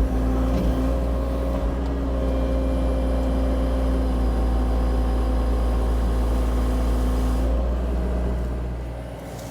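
Cat 304 E2 mini excavator's diesel engine running under load, with a steady whine over the engine note that stops near the end as the machine eases off and the sound drops.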